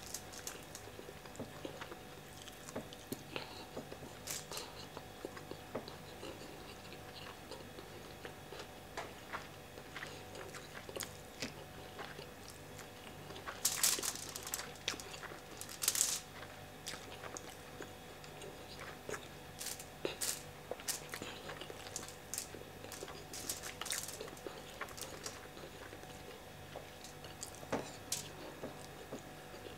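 A man chewing mouthfuls of jollof rice eaten by hand, close to the microphone: wet mouth clicks, smacks and bites scattered irregularly, with two louder ones around the middle.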